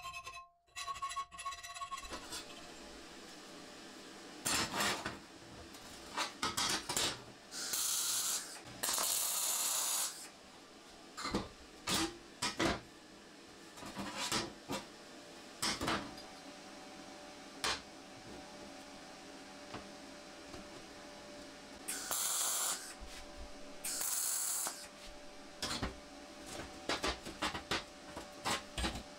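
Steel parts handled on a steel workbench: scattered knocks and clinks as metal pieces are set down and fitted together. Two stretches of scraping come about a third of the way in and again about three quarters in.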